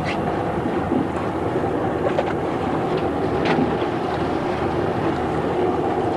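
Steady low drone of a lifeboat's engine running alongside, with wind on the microphone and a few light knocks from handling on deck.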